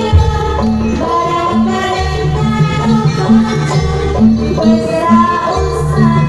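Live jaranan ensemble music: Javanese folk percussion keeps a steady repeating beat under a bending melody line.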